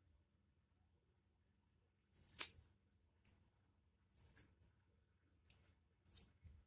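Large steel scissors snipping through wool yarn, trimming a pom-pom: about six short, sharp snips at irregular intervals roughly a second apart, starting about two seconds in, the first the loudest.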